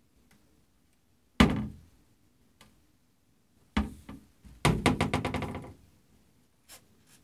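Vanity cupboard door knocking against its frame as a cat paws it open and lets it swing back. There is a sharp knock about a second and a half in, another just before four seconds, then a quick run of clicks for about a second, and two faint ticks near the end.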